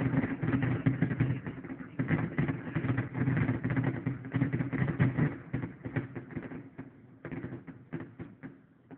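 Fireworks bursting and crackling in rapid succession. The bangs come thick and fast at first, then thin out to scattered cracks near the end.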